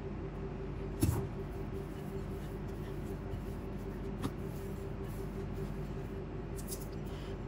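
Hands turning an oiled ball of bread dough in a ceramic bowl, with a sharp knock about a second in and a lighter tap around four seconds in, over a steady low hum.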